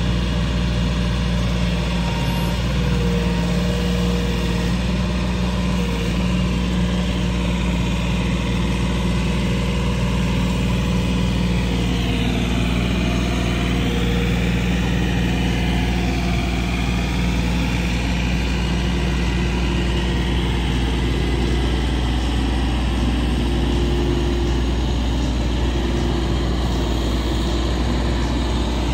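Kioti compact tractor's diesel engine running steadily while it works its front-loader log grapple, with a brief rise and fall in pitch about halfway through.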